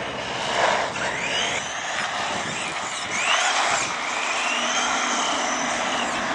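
Tamiya Gravel Hound RC buggy's electric motor whining. It rises in pitch as the buggy accelerates and falls away again, several times over, with the rush of its tyres on asphalt underneath.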